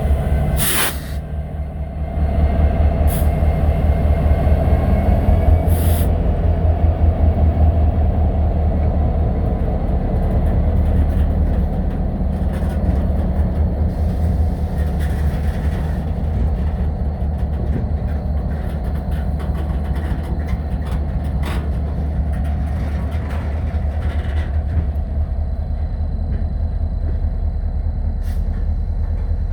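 A train running past with a heavy, steady low rumble and a dense, fast rattle of wheels on the rails. A few sharp bangs come in the first six seconds.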